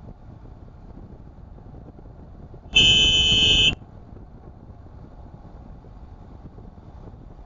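A car horn honks once for about a second, a steady multi-tone blare that starts and stops sharply, over the steady low rumble of road and engine noise heard from inside a moving car.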